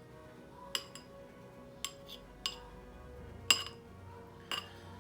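A metal utensil clinking against dishware five times, roughly once a second, each a sharp click with a brief ring; the clink about three and a half seconds in is the loudest. Quiet background music runs underneath.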